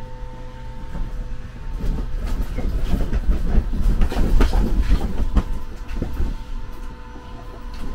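Wind gusting across the open helm of a docked cabin cruiser, a heavy low rumble on the microphone. The rocking boat adds many irregular knocks and rattles, building to a peak about halfway through and easing off near the end.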